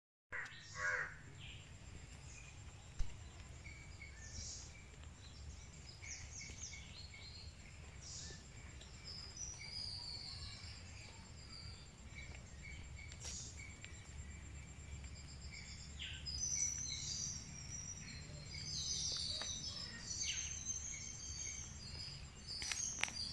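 Outdoor ambience: scattered short, high-pitched bird chirps and calls, busiest in the last third, over a steady low rumble.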